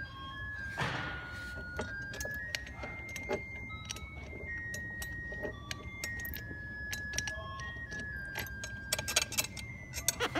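Light metallic jingling and clinking, with short ringing tones at shifting pitches and scattered sharp clicks; a quick run of louder clinks comes near the end.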